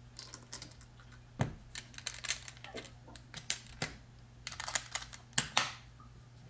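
A string of irregular sharp clicks and taps, some in quick clusters, from hands handling the tool box's hard case and fittings.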